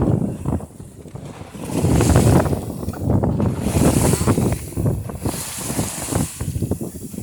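Wind buffeting the microphone in gusts over the wash of choppy water, with short splashing hisses as waves break against the hull of a Banks dory sailing upwind.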